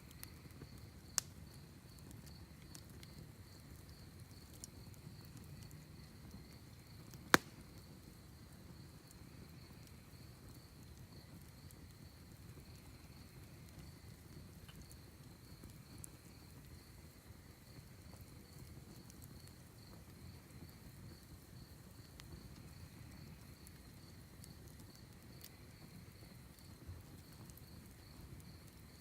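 Wood fire in a fire pit burning quietly with a few sharp pops, the loudest about seven seconds in, over a steady high trill of crickets.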